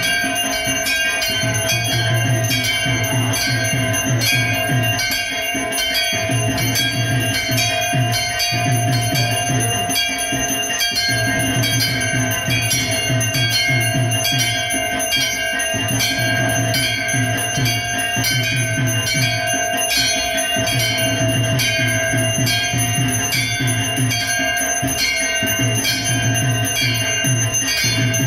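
Hindu temple bells ringing rapidly and continuously, with several ringing pitches sustained. Under them a low sound pulses on and off every couple of seconds.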